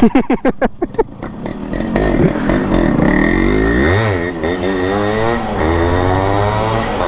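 Yamaha RX100's single-cylinder two-stroke engine being revved: a quick run of firing pulses that drop in pitch in the first second, then the revs climb about three seconds in and rise and fall with the throttle.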